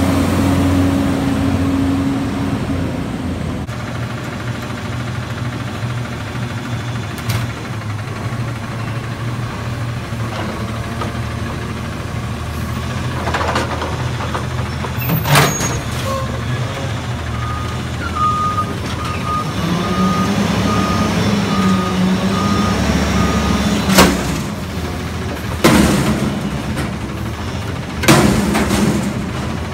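Autocar ACX natural-gas front-loader garbage truck with a McNeilus body: engine running as it pulls up to a dumpster, a reversing alarm beeping steadily for several seconds past the middle, then the engine revving to work the hydraulic lift arms. Near the end three loud bangs as the steel dumpster is raised over the cab and banged at the top of the lift to empty it into the hopper.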